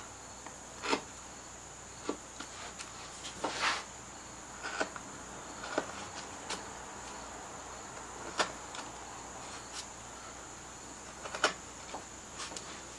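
A half-inch carving gouge pushed by hand into soft Alaskan yellow cedar, cutting the background and prying out chips. It makes irregular short cuts and clicks, about a dozen, with a longer cutting stroke about three and a half seconds in.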